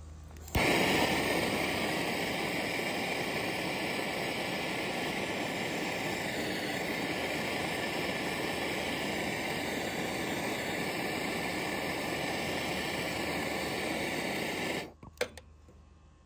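Handheld MAP-gas torch lighting with a sharp pop about half a second in, then burning with a steady hiss while it heats a copper line-set joint for silver soldering. It shuts off suddenly near the end, followed by a single click.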